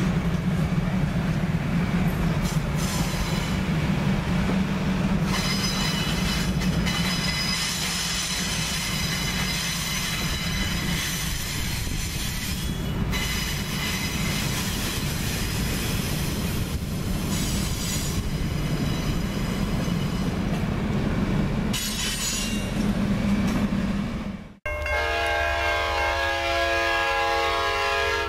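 Passenger cars of a train rolling past at speed, with rumbling wheels, rail joints clacking and a thin high squeal from the wheels. After a sudden cut, the lead F-unit diesel locomotive of the approaching train sounds a long horn blast.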